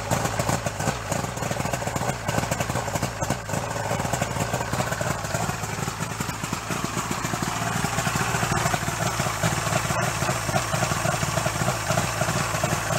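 Oil-injected three-cylinder 90 hp two-stroke outboard motor running steadily at idle on a garden-hose flush muff, warming up just after its first cold start of the season.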